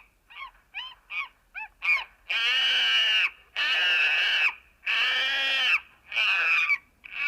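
Monkey calling: a quick series of short rising calls, then four long, loud calls about a second each.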